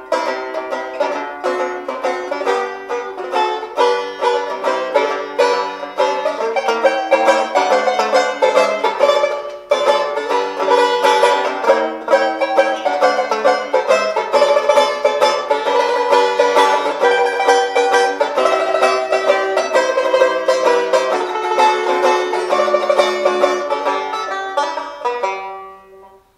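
Epiphone Recording Art Deluxe tenor banjo played solo, a melody in rapid picked notes, ringing out and fading to silence at the end of the piece.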